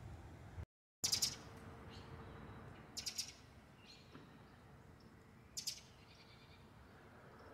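A small bird chirping in three short, quick bursts about two seconds apart.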